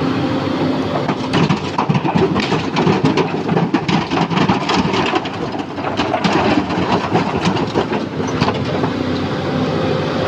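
Crushed stone clattering against the steel of a Sany SY215C excavator during loading, a dense rattle of many small impacts from about a second in until near the end. Underneath is the excavator's steady diesel engine hum, which comes through more plainly once the clatter dies down.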